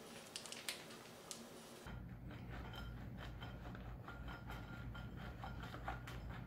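Cheese being grated on a hand cheese grater: quick, faint, irregular scraping strokes and clicks. About two seconds in, a steady low hum comes in underneath.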